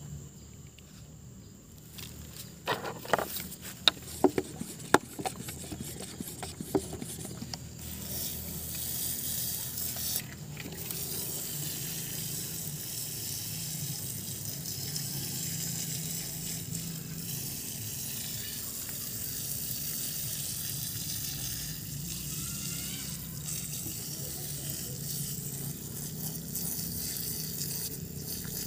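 A handful of sharp clicks and knocks, then from about eight seconds in the steady hiss of a hand-pump pressure sprayer jetting water onto loose soil.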